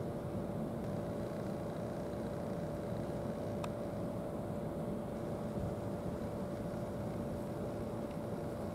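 Steady machine drone with a constant whine held on one pitch, like an engine running at a fixed speed, and a single faint click a few seconds in.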